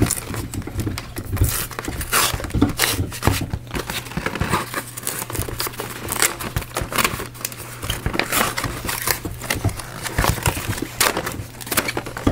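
Perforated cardboard packaging being torn open and crinkled by hand, with irregular tearing and crackling throughout.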